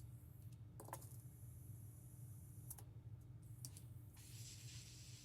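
Faint scattered clicks of a hand tool working at a stubborn thread-locked screw, over a steady low hum.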